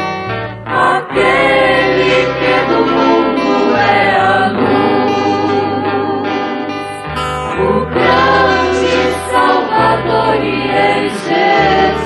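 Gospel song: a choir singing over instrumental accompaniment, with a sustained bass line that changes note every few seconds.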